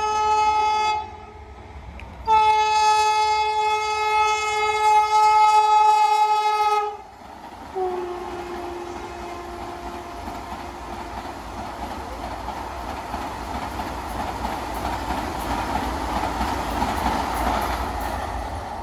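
Vande Bharat Express electric trainset sounding its horn as it approaches at speed: a blast ending about a second in, a long blast of about four and a half seconds, then a lower, slightly falling note as the front goes by. After that comes the steady rush of the coaches running past on the track, growing a little louder toward the end.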